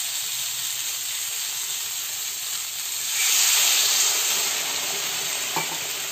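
Drumstick (moringa) pieces sizzling in hot oil in a kadai. About three seconds in, water poured into the hot pan hisses louder in a rush of steam, then eases back to a quieter sizzle.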